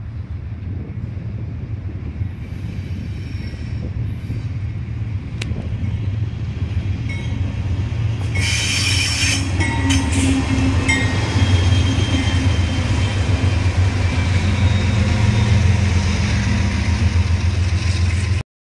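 Diesel freight locomotives passing close by. Their low engine rumble grows louder as the lead unit draws near, then the cars roll past with a high squeal from the wheels on the rails. The sound cuts off suddenly just before the end.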